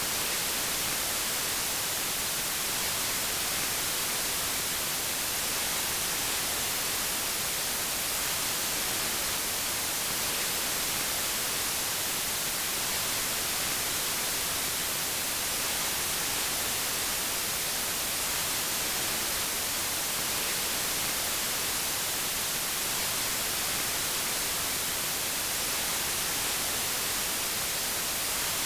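Synthetic white noise: a steady, even hiss that never changes, brightest in the treble.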